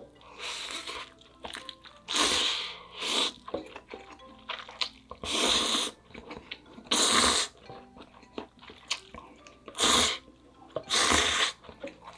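Ramyeon noodles being slurped in about seven quick, airy slurps, each about half a second long, with faint background music under them.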